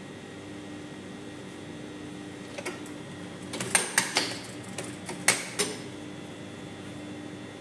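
Hands working fabric at a Brother industrial sewing machine: a cluster of irregular sharp clicks and short rustles over about three seconds in the middle, over a steady hum with a low tone. The machine is not running a seam, since there is no even stitching rhythm.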